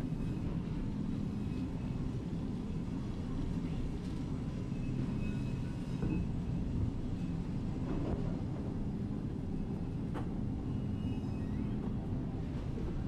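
Steady low rumble of supermarket background noise beside open refrigerated meat display cases, with a faint click about ten seconds in.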